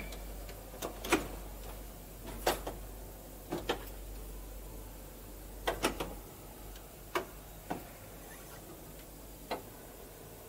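About a dozen irregular mechanical clicks and knocks from the console of a Cavaillé-Coll pipe organ, some in quick pairs, over a low steady hum. No notes sound yet.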